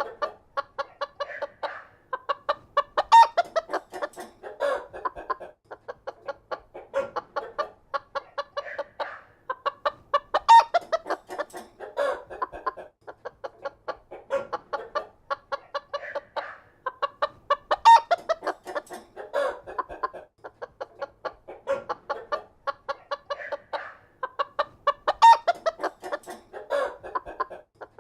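A flock of chickens clucking, a dense run of short clucks with a louder call standing out about every seven seconds as the same stretch repeats.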